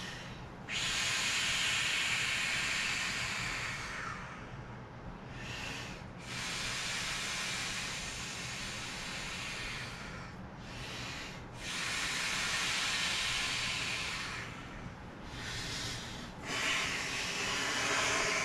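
A person blowing up an inflatable vinyl airplane by mouth: four long breaths of about three to four seconds each, blown hissing through the valve, with short breaths between them.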